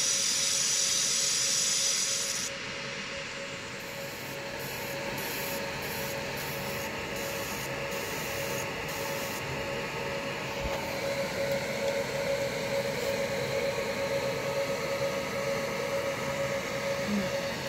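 JPT 60W MOPA fiber laser marking machine running: a loud high hiss that cuts off abruptly about two and a half seconds in, then a steady mechanical hum with one held tone, growing a little louder and more uneven from about eleven seconds in.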